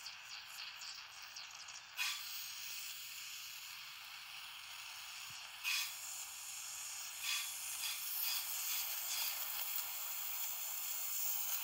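Compressed air escaping through the porous weld of an OMC stern drive lower unit's bearing retainer and bubbling up through the liquid in its bore: a steady fizzing hiss that grows louder about two seconds in, with a few brief louder spurts. The leak shows the welded repair of the retainer is not airtight.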